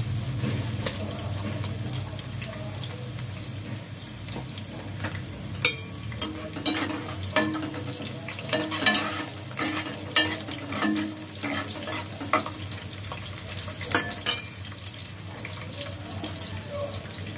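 Sliced onions sizzling in oil in an aluminium pot, being fried for pulao. From about five seconds in to about fourteen seconds a spoon stirs them, clinking and scraping against the pot.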